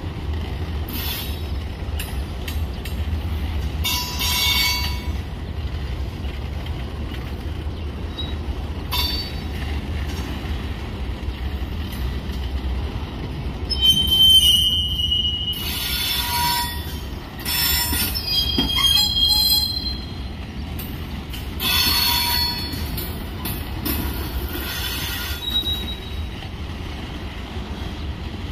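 Union Pacific manifest freight train's covered hoppers and tank cars rolling past with a steady low rumble, the wheels giving high squeals that come and go, loudest about halfway through and several more in the second half.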